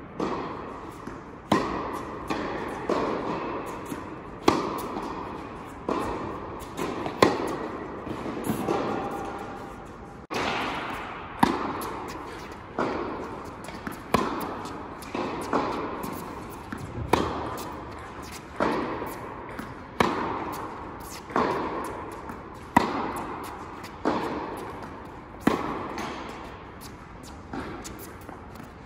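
Tennis ball being hit back and forth with rackets in a rally, a sharp pock about every second and a half, each ringing on in the echo of an indoor tennis hall.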